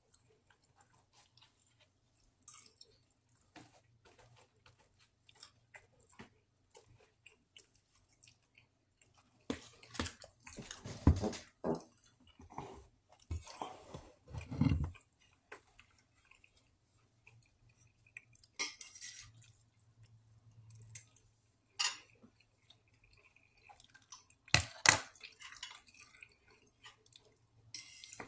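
Someone eating: chewing, with a metal fork clinking and scraping against a stainless steel pot. The clatter is loudest in a cluster about a third of the way through, with a few sharp single clinks later.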